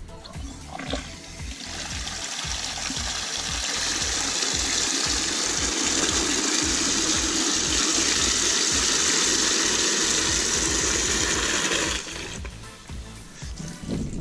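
Water running from an outdoor wall tap into a plastic bucket. The flow starts about a second and a half in, grows fuller, then stops suddenly about two seconds before the end as the tap is shut.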